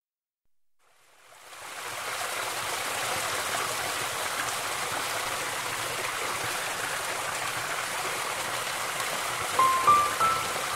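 Steady rush of flowing water in a rainforest, fading in over the first two seconds. Near the end, three short whistled notes step upward in pitch.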